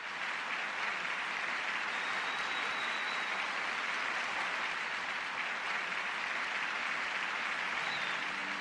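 An audience applauding steadily, a dense even clapping without a break.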